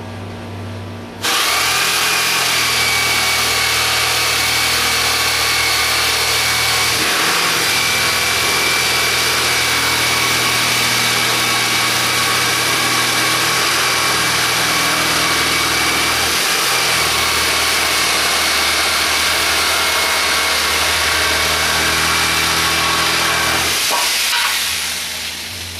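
Handheld electric saw running and cutting through a wooden board. It is a loud, steady motor whine that starts about a second in, changes slightly twice as the cut goes on, and winds down near the end.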